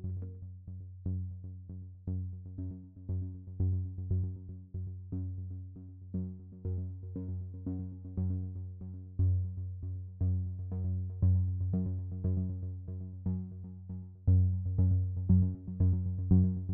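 Electronic synthesizer music with a steady pulse of repeated, quickly decaying notes over a deep bass.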